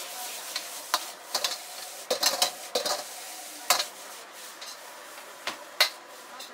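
Egg fried rice sizzling in a wok over a gas burner as a steel ladle stirs it, striking and scraping against the wok in about ten sharp metallic clanks at irregular intervals, the loudest near the end.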